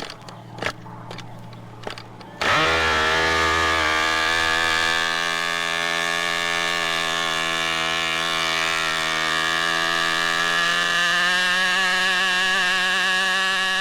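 A few sharp clicks over a low hum, then about two and a half seconds in a machine starts abruptly and runs steadily with a many-pitched mechanical drone, its pitch shifting slightly near the end.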